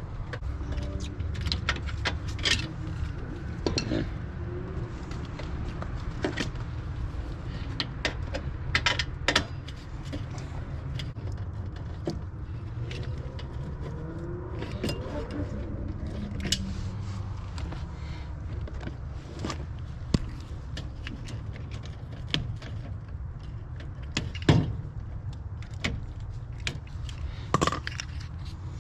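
Scattered metallic clicks, clinks and taps of small metal objects being handled, over a steady low rumble.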